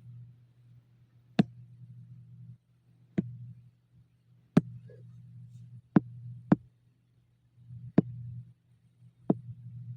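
Seven sharp single clicks at the computer, spaced unevenly a second or so apart, over a low steady hum that cuts out and comes back between them.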